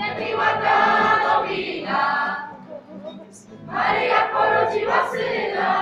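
A group of young voices singing a Polish Christmas carol (kolęda) together, with acoustic guitar accompaniment; the singing breaks off for about a second between lines about two and a half seconds in, then resumes.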